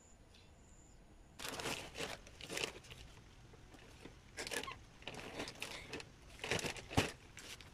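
Plastic bag of garden soil crinkling and rustling in a series of bursts as it is handled and opened, with a sharper crackle near the end.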